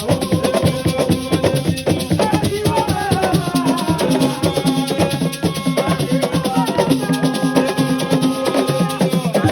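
Assiko music: dense, fast hand percussion with shaker rattles, and held melodic notes over it.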